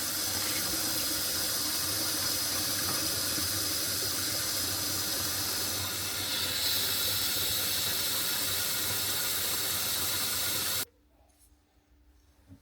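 Water running steadily from a tap, a constant hiss that cuts off abruptly near the end.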